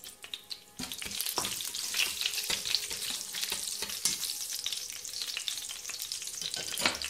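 Whole spices (dried red chillies, cumin seeds, cardamom and cinnamon) sizzling and crackling in hot oil in a stainless steel pot while being stirred with a spatula. The sizzle starts about a second in, after a few clicks.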